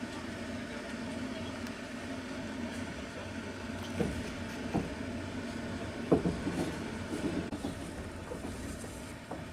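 Passenger train carriage running, heard from inside: a steady low rumble with the clatter of wheels knocking over rail joints, loudest in a cluster of knocks about six seconds in.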